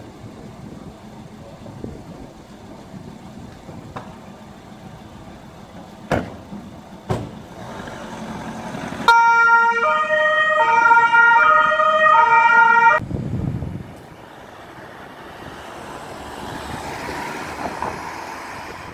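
Carabinieri patrol car's two-tone siren, loud for about four seconds and switching between a high and a low note about every half second, then cutting off. Before it, steady street noise with two sharp knocks; after it, the car's engine and wind.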